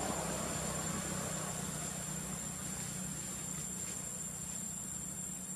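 Steady low background hum with a thin, steady high-pitched tone above it; a hiss fades away over the first two seconds.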